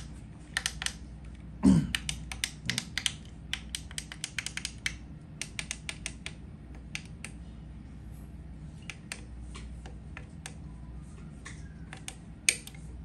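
Front-panel push buttons of a D900/P9000 digital karaoke mixer clicking as they are pressed over and over, in quick runs at first and then more sparsely, with one sharper click near the end, plus a brief low thump about two seconds in. The presses do nothing because the unit has frozen with its OSP error.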